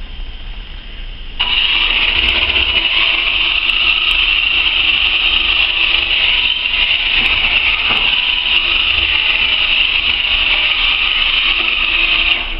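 Electric drive motors of a three-wheel omnidirectional robot running under remote control, a steady high whir. It starts about a second and a half in and cuts off near the end.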